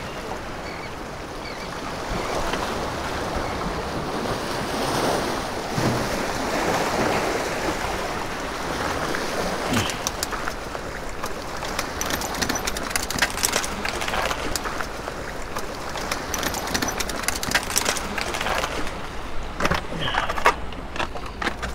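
Small surf waves washing and splashing over granite jetty rocks. From about ten seconds in, a run of sharp clicks and knocks comes over the wash.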